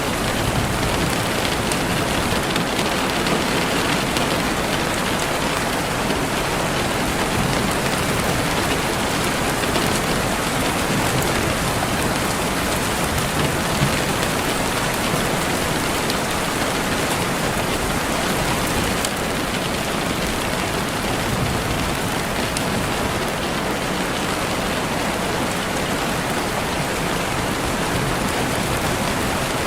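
Steady rain falling and pattering on surfaces, an even hiss with faint scattered drop ticks.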